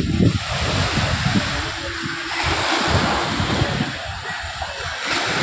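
Sea surf washing onto the shore in a steady hiss that swells about halfway through and again near the end, with wind buffeting the microphone.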